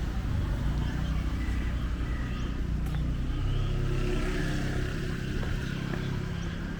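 City street traffic: a motor vehicle's engine running with a steady low rumble, a little stronger in the middle.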